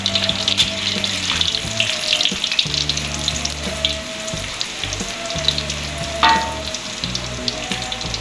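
Sliced garlic sizzling and crackling in hot oil in a steel wok as it is stir-fried toward golden yellow, with one sharp clink of the metal spatula against the wok about six seconds in.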